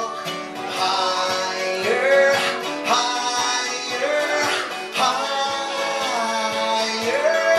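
Live acoustic folk song: two acoustic guitars strummed and picked, with a man singing a melody that slides between notes.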